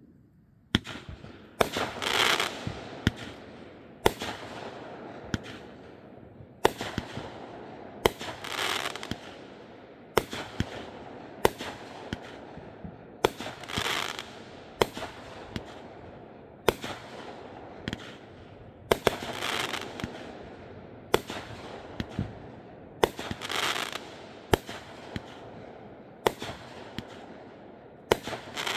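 Aerial fireworks launching and bursting in quick succession, starting suddenly about a second in: sharp bangs roughly every second, with a longer crackling burst every five or six seconds.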